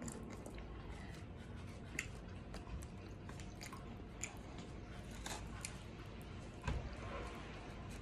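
Close-up eating sounds: a person chewing and biting into air-fried chicken strips, with soft irregular mouth clicks and smacks.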